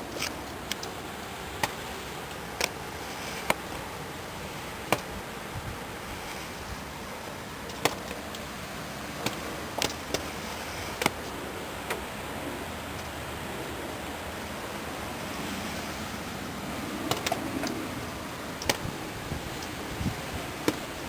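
Steady hiss of a wet snowfall, with scattered sharp ticks of slushy snow and meltwater drops landing at irregular intervals.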